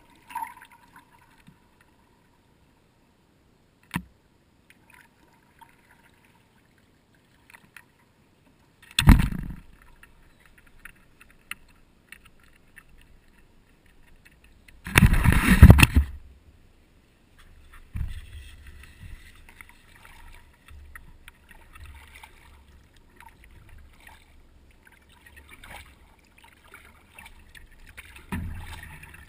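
Paddleboard moving on calm water. Mostly quiet at first with a few light knocks, then two loud bangs and splashes against the board, about a third and about halfway through. After that, a steady low rumble with light sloshing of water along the hull.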